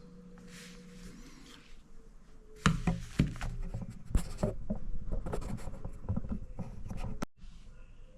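Typing on a phone's touchscreen keyboard: a quick, irregular run of taps and clicks that starts about two and a half seconds in and lasts about four and a half seconds.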